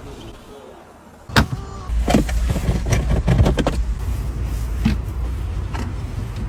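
Clicks and knocks of parts being handled inside a Tesla Model 3's cabin while the cabin air filter is being changed. A low rumble runs under them. One sharp click comes about a second and a half in.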